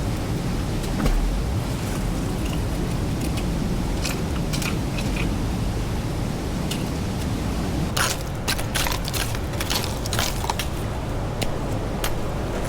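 Stream water flowing steadily. From about eight seconds in, it is joined by a quick run of sharp clicks and crunches, like gravel and sand being shaken in a gold pan.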